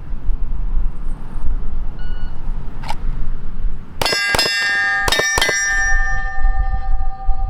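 A shot timer beeps about two seconds in, then a Glock 19 fires four 9mm shots in two quick pairs at AR500 steel targets, each hit ringing the steel, with the ring hanging on after the last shot. Wind rumbles on the microphone throughout.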